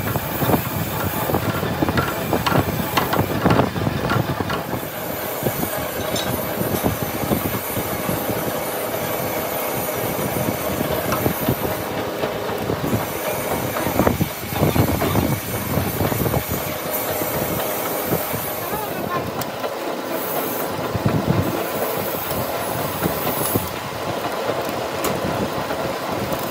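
Metal lathe running while a large twist drill in the tailstock bores into the end of a turned steel shaft, a steady grinding cutting noise over the machine's hum.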